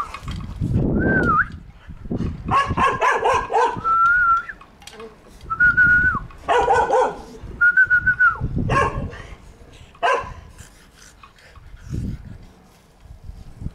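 Keeshond puppies play-fighting, giving several high, thin whines that drop in pitch at the end, mixed with short bursts of yapping barks.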